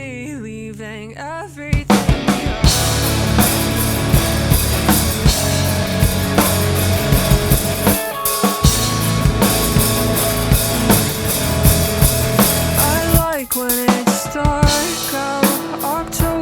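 Rock music with a drum kit played hard along to the song: after a held, wavering sung note, kick, snare and cymbals crash in with the full band about two seconds in and drive on steadily. There is a short break near the end, then the singing comes back over the drums.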